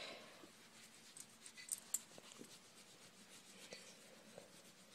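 Near silence: faint rustling and a few light clicks, the loudest a pair about two seconds in.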